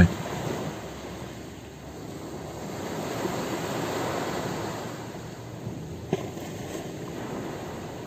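Ocean surf washing onto a shore, one wave swelling louder in the middle and then easing off.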